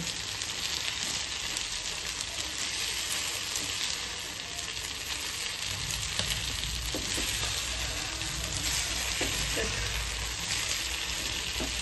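Masala-coated mugudu pieces sizzling steadily in oil on a banana leaf in a frying pan, with a spatula shifting them now and then. A low rumble joins about halfway through.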